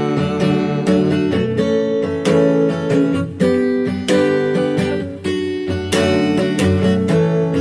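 Acoustic guitar strummed in a steady rhythm, chords ringing between strokes.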